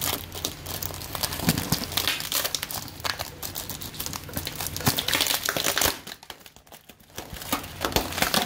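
Dense crackling and crinkling as a hand flexes and works the stiff edges of a freshly cured carbon-fibre-and-epoxy layup and its clear plastic release wrap, loosening the part from the mould. The crackling eases briefly about six seconds in, then picks up again. A low steady hum runs underneath.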